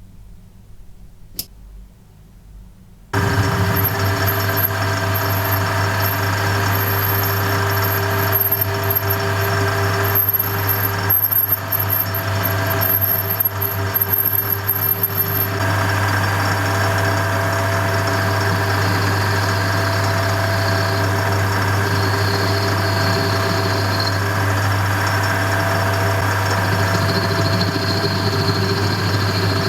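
JET BD-8VS benchtop metal lathe switched on about three seconds in and then running steadily with a low hum, after a single click just before. A faint high whine comes and goes during the first half of the run.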